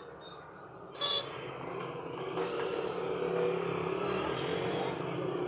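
Engine noise running steadily and growing louder toward the middle, with one sharp click about a second in.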